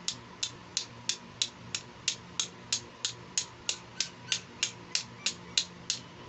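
A long run of small, sharp plastic clicks, evenly spaced at about three a second, as the pink chest piece of a toy stethoscope is worked by hand; they stop shortly before the end.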